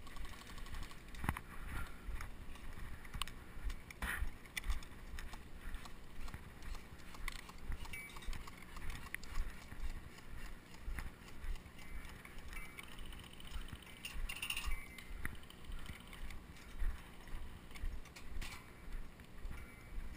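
Footsteps walking over dry grass at an easy pace, about one and a half steps a second, with carried gear clicking and rattling and a few sharper knocks.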